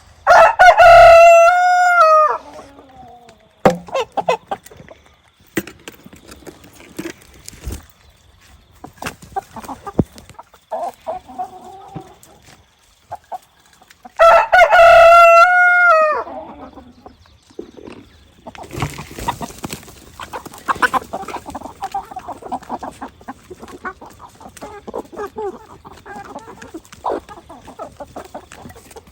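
A rooster crowing twice, loud and close, once near the start and again about 14 seconds later, each crow about two seconds long. Chickens cluck between the crows, and the clucking turns busier over the last ten seconds.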